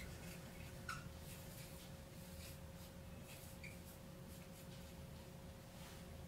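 Dry-erase marker squeaking and scratching faintly on a whiteboard in short strokes.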